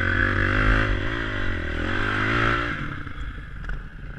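Honda CRF250X's single-cylinder four-stroke engine revving under load, its pitch rising and falling with the throttle, then dropping away after about three seconds.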